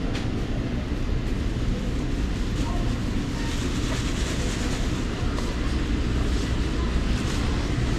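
Steady low rumble of supermarket background noise, with a few faint clicks.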